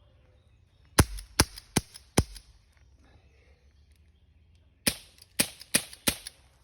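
Air gun shots, fired in two strings: four sharp cracks about half a second apart, a pause of over two seconds, then four more.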